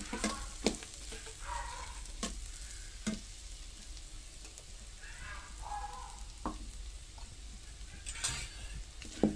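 Spatula scraping and knocking a few times against a metal kadai as onion masala with wet chili powder paste is stirred, over a faint sizzle of frying in oil.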